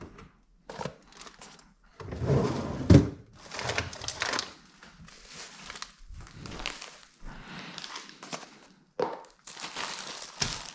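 Plastic food packaging crinkling and rustling as it is handled, broken by several thunks, the loudest about three seconds in.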